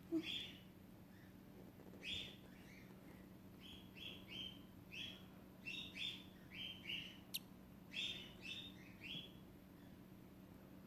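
Newly hatching lutino cockatiel chick peeping: about fifteen short, faint, high cheeps, some in quick pairs and threes, with a single sharp click about seven seconds in.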